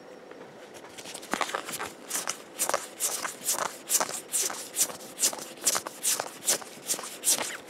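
Cardfight!! Vanguard trading cards being flipped off a stack one at a time: a run of quick, papery swishes about three a second that starts about a second and a half in.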